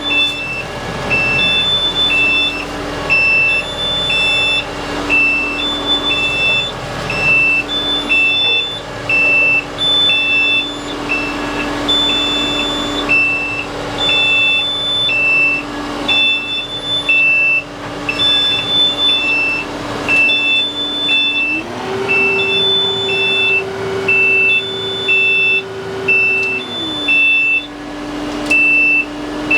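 TYM tractor's diesel engine running with a warning beeper in the cab sounding about one and a half times a second, a second higher beep repeating more slowly. About two-thirds of the way in, the engine speeds up, holds for about five seconds, then drops back to idle.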